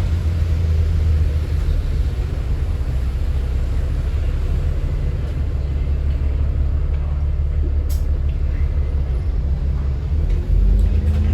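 Alexander Dennis Enviro 400 MMC double-decker bus with Voith automatic gearbox, its engine running at a steady low rumble. Near the end the engine note rises and gets louder as it picks up revs. There is a single short click about eight seconds in.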